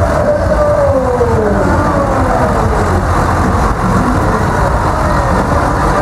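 John Deere 8320 tractor's six-cylinder diesel engine running as the tractor drives slowly past close by, its note gliding down over the first few seconds.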